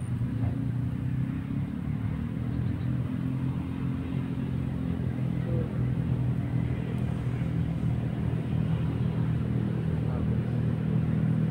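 An engine running steadily: a low drone that grows a little louder toward the end.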